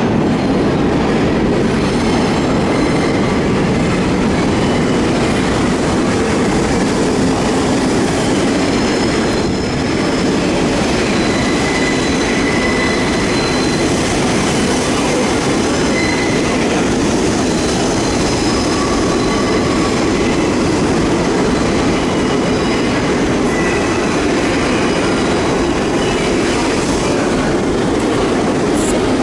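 R42 subway train (St. Louis Car Co. cars) running into an underground station along the platform: a loud, steady rumble of steel wheels on the rails, with short high wheel squeals now and then.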